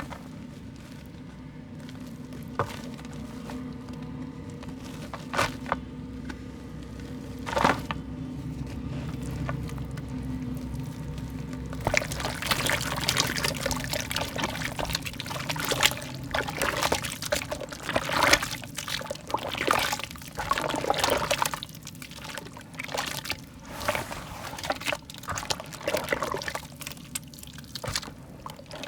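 Soft, wet mud crumbling: a few separate crunches, then from about twelve seconds in a dense run of wet crackling and crumbling.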